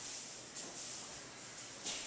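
Faint rustling of heavy cotton practice uniforms as people move on a matted floor, with a short swish near the end.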